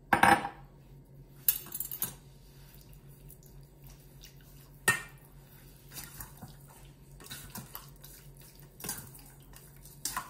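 A metal spoon stirring raw chicken cubes in a stainless steel bowl, with scattered clinks of spoon against bowl. A louder knock right at the start as a glass oil jug is set down on the counter.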